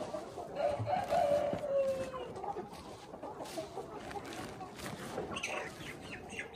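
A Minh Du rooster crowing once, one long call about a second in that drops in pitch at its end, with chickens clucking around it and shorter higher calls near the end.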